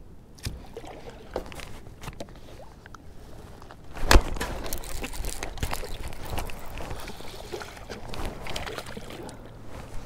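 Handling knocks and clicks in a plastic kayak, then a sharp knock about four seconds in. After it comes a few seconds of water splashing and sloshing as a hooked largemouth bass is brought alongside and lifted out of the water.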